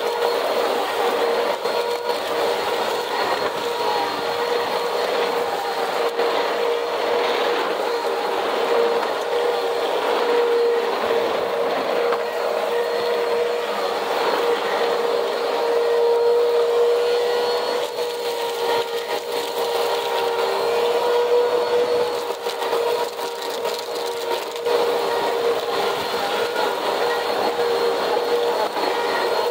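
Vacuum cleaner running steadily on a cement floor, its motor giving a constant whine, with small debris ticking and rattling as it is sucked up.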